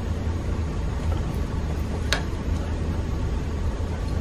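Steady low background hum with a single sharp click about two seconds in.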